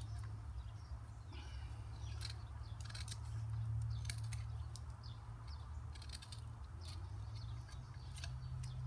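One-handed drawknife shaving bark off a dry ash branch: short, crisp scraping strokes, irregularly spaced about one or two a second, over a steady low hum.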